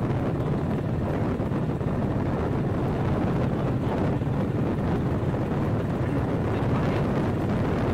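Steady engine and road rumble of a moving open-sided tuk-tuk, heard from aboard, with wind buffeting the microphone.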